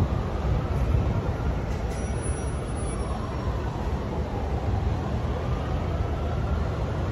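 City street traffic noise: a steady low rumble of passing vehicles, with a faint engine pitch slowly rising and falling.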